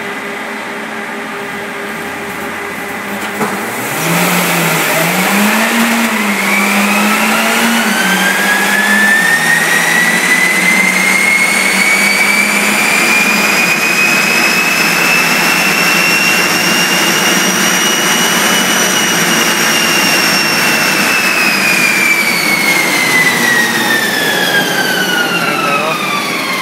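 Turbocharged Mitsubishi Lancer Ralliart on a chassis dyno: the engine idles, then about four seconds in it launches hard and pulls up through the gears. A high whine rises steadily in pitch with road speed until a little past halfway, then falls away as the car coasts down on the rollers.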